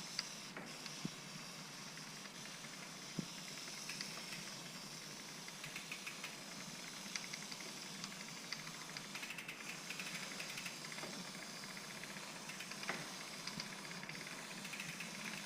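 Degreaser spraying from a can onto a bicycle chain and sprockets, a steady hiss with scattered light clicks.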